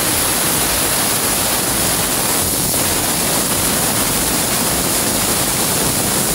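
Pressure cooker whistling: the weight valve vents steam in a loud, steady rushing hiss. This is the one whistle that signals the jackfruit inside is cooked.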